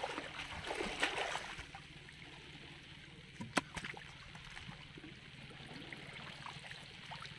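Pond water splashing and trickling as hands and body move through shallow, weed-choked water, loudest in the first second and a half and then softer. A single sharp click comes about three and a half seconds in.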